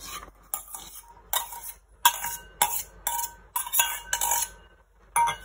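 Metal spoon scraping and clinking against stainless steel bowls in a quick series of short strokes, about two a second, some with a faint metallic ring, as yogurt is scraped out of a ridged steel bowl.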